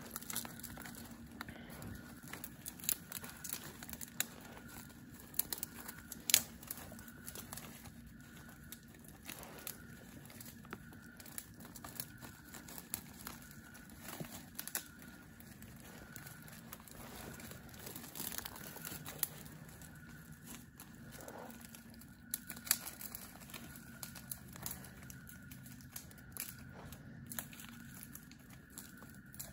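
Irregular crunching and crackling of dry leaves, pine needles and twigs underfoot, from walking through woodland undergrowth, over a faint steady hum.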